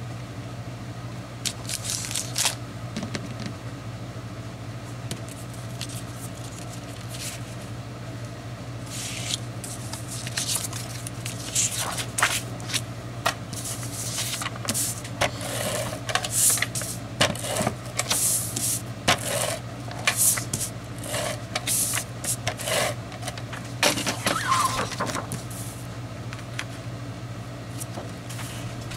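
Sheets of cardstock and patterned scrapbook paper being lifted, shifted and slid across a cutting mat, giving many short paper rustles and scrapes, busiest in the middle. A steady low hum runs underneath.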